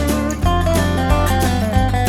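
Background music: acoustic guitar with a steady bass beat.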